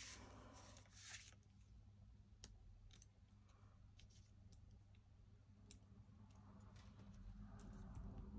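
Faint, scattered light clicks and small paper scrapes over a low steady hum: metal tweezers picking up and placing small die-cut paper pieces onto a card.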